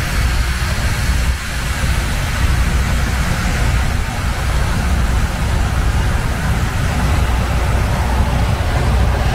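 Loram RG-401 rail grinder passing close by, its grinding stones on the rails giving a loud, steady hiss over a deep rumble.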